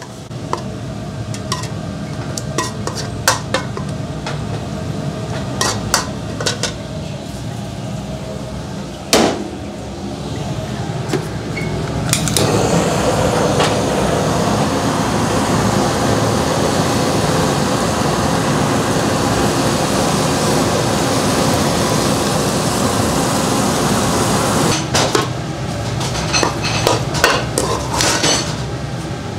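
A spatula clacks and scrapes against a pan as spicy pork trotters are stir-fried. About twelve seconds in, a handheld kitchen blowtorch starts up with a steady, loud roar and sears the sauced meat for about twelve seconds, then cuts off. Metal clinks follow as the meat is placed on a stainless-steel plate.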